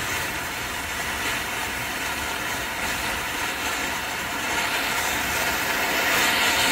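Monkey Mania Bouncy Beans ground fountain firework spraying sparks with a steady hiss, growing a little louder near the end.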